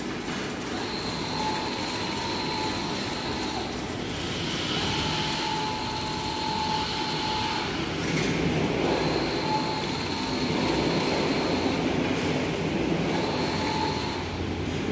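Wide-format inkjet banner printer running. The print-head carriage sweeps back and forth, its motor whining in passes of two to three seconds that start and stop every few seconds, over a steady whir of the machine's fans.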